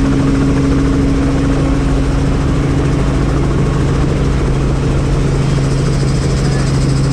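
Helicopter running: a loud, steady engine and rotor drone with a constant low hum under a wash of noise.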